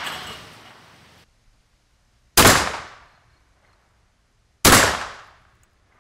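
Two 12-gauge shotgun blasts from a TOZ 66 hammer shotgun, a little over two seconds apart, each a sharp report that echoes away over about a second. Before them, the echo of an earlier shot is still fading.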